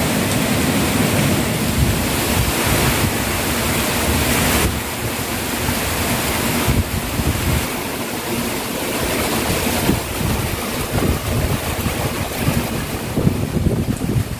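Strong typhoon wind gusting through trees, with heavy rain. The gusts buffet the microphone with low rumbles.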